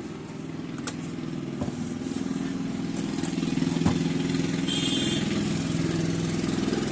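A small engine idling with a steady low hum that grows louder, then cuts off abruptly near the end; a few light clicks and a short hiss sound over it.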